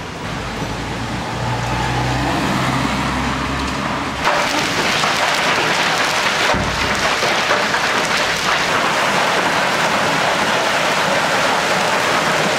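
Heavy rain and hail pelting a street as a dense, steady hiss. Before that there is a low rumble that cuts off suddenly about four seconds in.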